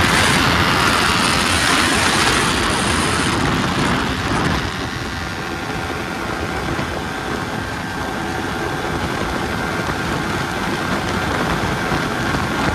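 Yamaha R15 motorcycle at high speed on a top-end run: a steady rush of wind and engine noise, easing a little about four seconds in.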